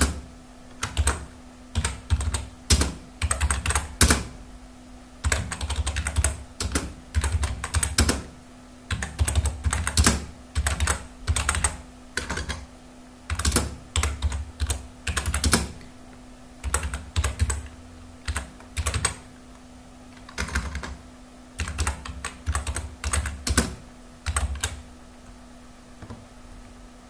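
Computer keyboard being typed on, key clicks coming in uneven bursts with short pauses, at about 34 words per minute. The typing stops a few seconds before the end, and a faint steady hum runs underneath.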